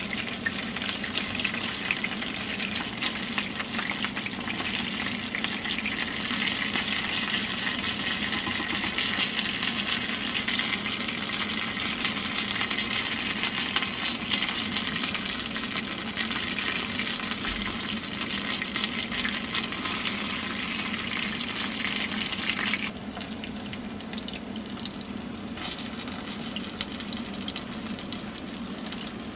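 Karaage (flour-coated chicken pieces) sizzling steadily as they shallow-fry in oil in a frying pan. The sizzle turns noticeably quieter about three-quarters of the way through.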